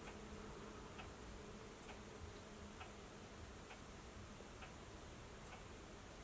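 Faint, regular ticking, a little under one tick a second, over quiet room hiss; a low hum underneath fades out about three seconds in.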